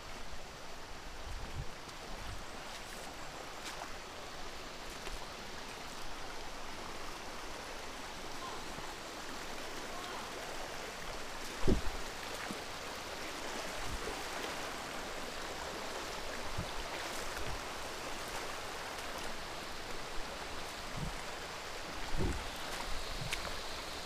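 Shallow stream running over rocks and pebbles, a steady rush of water. A few short low thumps break in, the loudest about halfway through.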